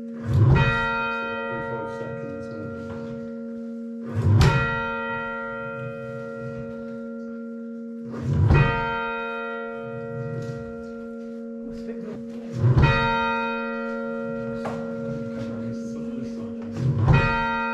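A single church tower bell, the tenor, tolled alone: five strokes about four seconds apart, each leaving a long hum that carries into the next.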